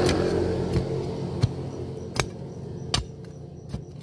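A long metal digging tool stabbed into soil, with sharp strikes about every three-quarters of a second, six in all. Under the first strikes a steady engine hum fades away.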